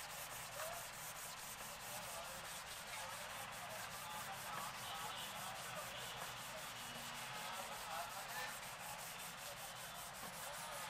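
Sandpaper rubbed back and forth by hand over a wet plastic headlight lens: steady wet-sanding of the foggy lens surface.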